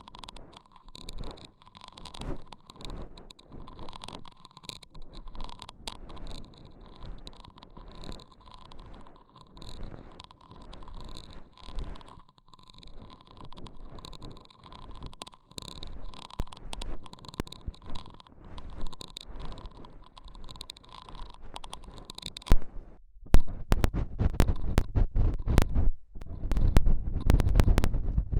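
Close-miked ASMR trigger sounds: soft, irregular scratching and rustling, changing near the end to louder, muffled rubbing with sharp crackles right on the microphone.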